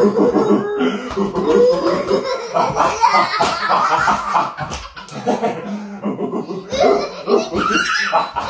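People laughing hard, a toddler's laughter among them, with a short lull about two-thirds of the way through before it picks up again.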